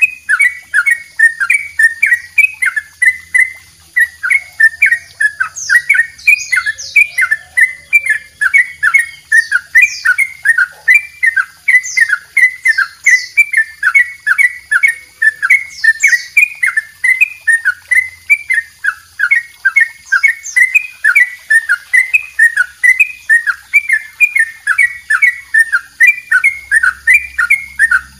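Caged yellow-vented bulbul (trucukan) singing a long, unbroken run of loud repeated notes, two to three a second: the long doubled 'ropel' song that bird keepers play to tutor other birds.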